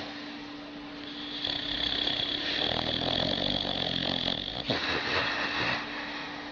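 Sleeping dog snoring while it dreams: one long, rasping snore from about a second in, then a shorter one near the end.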